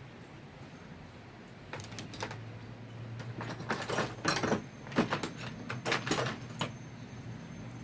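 Metal parts and hand tools clinking and rattling as they are handled, a burst of sharp clicks that is loudest in the middle and stops shortly before the end.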